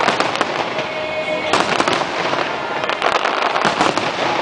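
Aerial fireworks display: a dense, continuous run of shell bursts with crackling and popping. A brief steady tone sounds about a second in.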